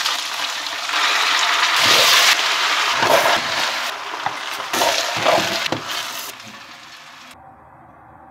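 Stir-fry sizzling in a hot wok, swelling in several loud surges as the food is tipped in and tossed, then dying away about six and a half seconds in.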